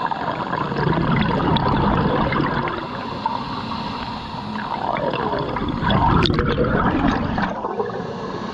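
Water gurgling and sloshing with bubbling, louder about six seconds in.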